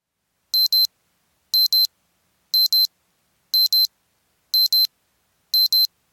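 Digital alarm-clock beeping of a countdown timer reaching zero: a high double beep, one pair each second, starting about half a second in.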